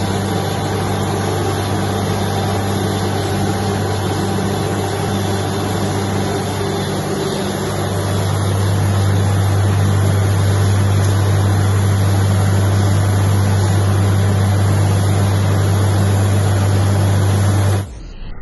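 Truck-mounted borewell drilling rig running hard, a steady low engine hum under the loud rush of air and water blowing out of the bore as it brings up a strong flow of groundwater. It grows louder about halfway through and cuts off suddenly near the end.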